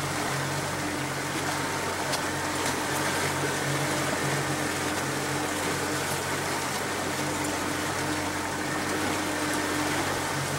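Small boat's outboard motor running with a steady low hum, with water washing along the hull.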